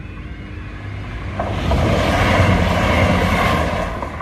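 Level crossing yodel alarm warbling in quick repeated two-tone calls, drowned about a second in by a loud rushing noise that swells for a couple of seconds and fades near the end.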